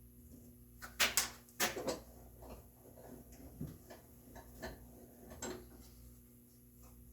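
Tools and oak pieces being handled on a workbench during layout: a few sharp knocks and clacks about a second in, then lighter scattered clicks and taps.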